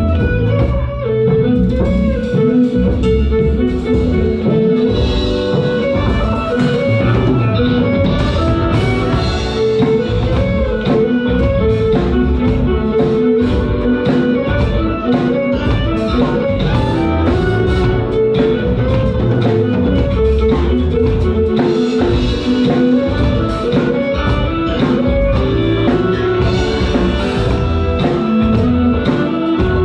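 Live music: two violins bowing a melody over a backing track with a steady drum beat and bass.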